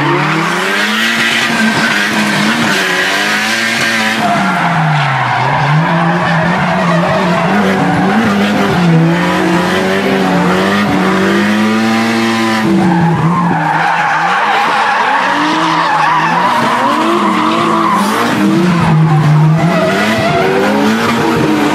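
Drift car's engine revving up and down, its pitch rising and falling every second or two as the throttle is worked, heard inside the cabin, over tyres screeching through a long slide.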